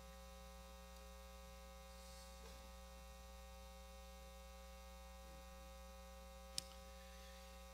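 Near silence with a steady electrical mains hum, and a single short click about six and a half seconds in.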